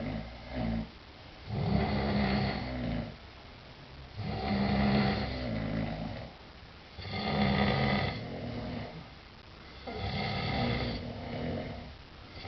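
Two sleeping men snoring together. Four loud, rasping snores come about every three seconds, with quieter snoring in between.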